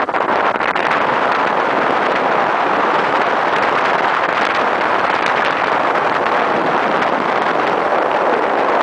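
Steady wind rush buffeting the microphone on a moving motorcycle, with motorcycle engine noise mixed in beneath it.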